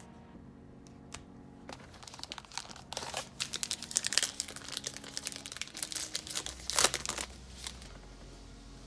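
A baseball card pack's wrapper crinkling and tearing as it is opened by hand, with crackling bursts that grow busier a couple of seconds in and peak near the end.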